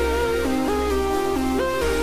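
Electronic background music: a melody of held notes stepping up and down every half second or so, over a steady bass.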